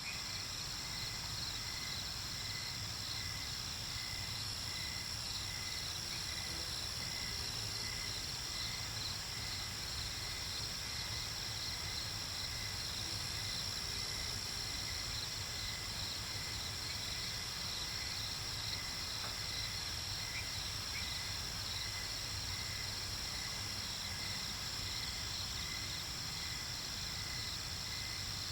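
Insect chorus, likely crickets: several steady high-pitched trills, one lower one pulsing at an even rhythm, over a low steady rumble.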